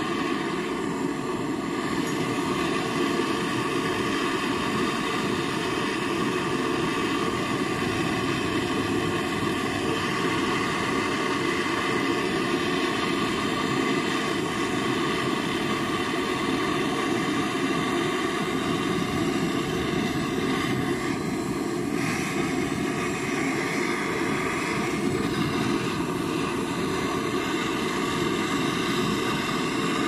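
Gas brazing torch burning steadily with a continuous rushing hiss as its flame heats a copper pipe joint on the refrigerator compressor lines.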